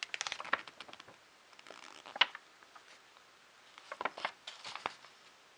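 Magazine pages being handled and turned: crisp paper clicks and rustles in a quick cluster at the start, a single sharp one about two seconds in, and another cluster around four seconds in.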